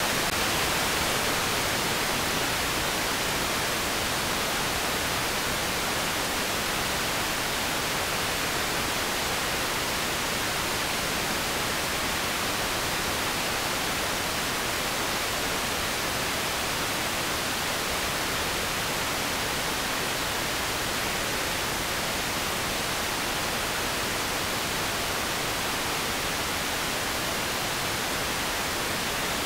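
Steady TV-static hiss, the 'sandstorm' noise of an untuned analog television, even and unchanging throughout and strongest in the upper range.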